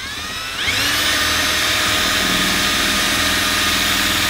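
Cordless drill spinning up with a rising whine, then running steadily at high speed as it bores a mounting hole into the trailer's wall.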